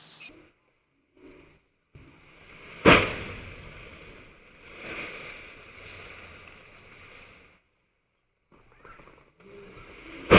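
Two sharp, loud impacts, one about three seconds in and one right at the end, each trailing off into noise, with a low rustling hiss in between that cuts out twice.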